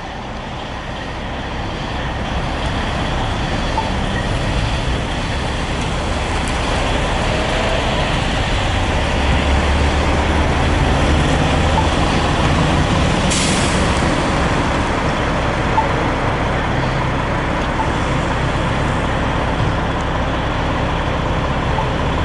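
Fire engine's diesel engine running, growing louder over the first several seconds and then holding steady, with a short air-brake hiss about thirteen seconds in.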